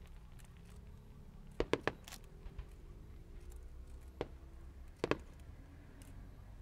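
Scattered sharp bangs of fireworks going off over a low rumble: a quick run of three cracks about a second and a half in, then single bangs about four and five seconds in.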